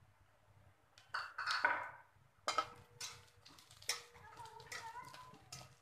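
Spatula scraping and clattering against a kadhai as roasted peanuts, onion and green chillies are stirred together, in repeated strokes starting about a second in.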